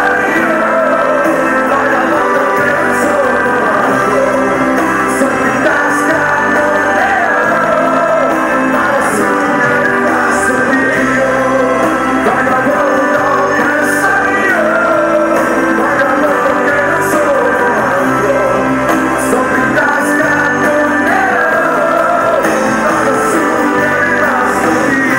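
Live rock band playing through a concert PA, with electric guitars, drums and singing, recorded from within the audience.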